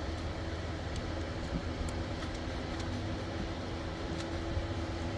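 A steady low machine hum, with a few faint light clicks of a plastic ignition-coil connector clip being worked by hand.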